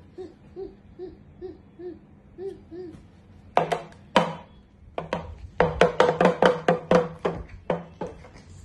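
Small skin-headed hand drum being banged: a few single hits, then a quick run of about five hits a second, then two last hits near the end. Before the drumming, a soft hooting voice repeats about three times a second.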